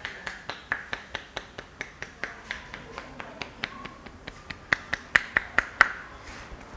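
Rapid rhythmic hand strikes of a barber's head massage: sharp claps or snaps at about four to five a second, the loudest ones coming just before they stop near the end.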